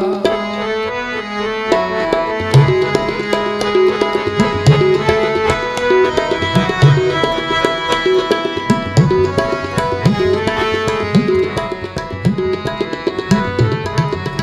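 Harmonium and tabla playing an instrumental passage of Gurbani kirtan: held harmonium chords under a busy tabla rhythm, the tabla's bass drum swooping in pitch on many strokes.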